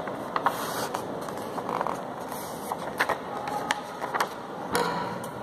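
Sheets of craft paper rustling and crackling as they are handled and folded, with a few sharp crisp crackles scattered through, over a steady background noise.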